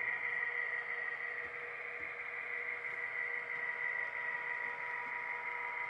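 HO-scale Kato C44-9W model diesel locomotive running along the track with a steady, unchanging hum and high whine.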